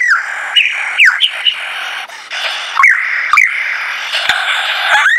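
Lyrebird singing loud whistled notes: a rising-and-falling whistle, then a string of quick downward-sweeping notes about half a second to a second apart, and another arched whistle near the end.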